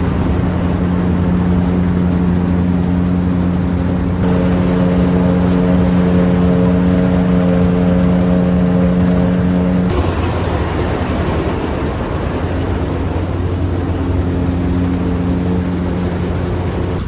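Diesel engine of heavy farm machinery running steadily with a strong low rumble and a steady drone. The sound changes abruptly twice, about four seconds and ten seconds in.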